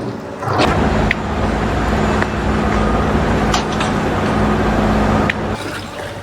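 An engine running steadily, with a few sharp clicks and knocks over it.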